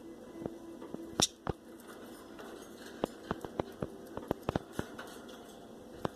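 Birds pecking at seed, a string of quick, irregular sharp clicks and taps.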